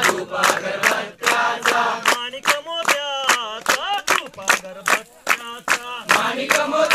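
A group clapping hands to a steady beat, about two to three claps a second, while chanting a song together. The group voices drop away about two seconds in, leaving a single voice singing a wavering line, and the group comes back in near the end.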